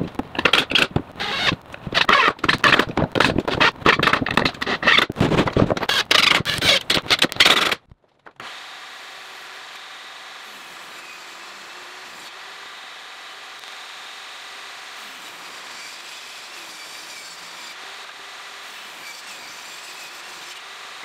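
A cordless power driver driving screws into a wooden form, in loud rattling bursts. About eight seconds in this stops and gives way to the steady, quieter running of a table saw ripping boards.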